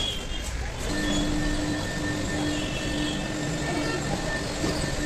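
Steady machine hum from metro station machinery, with a low tone and a higher whine that come in about a second in and hold steady.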